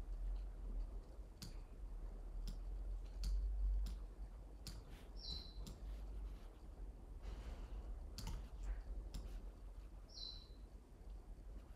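Computer mouse clicking at irregular intervals over a low hum, with two brief high chirps about five and ten seconds in.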